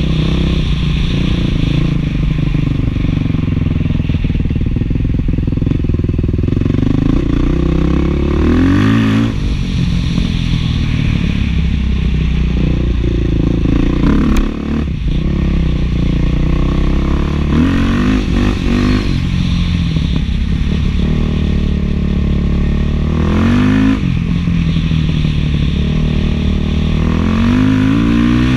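Beta 500 dual-sport motorcycle's single-cylinder four-stroke engine running through an FMF 4.1 muffler while riding. The revs rise several times and fall back between, with a brief drop in level about halfway through.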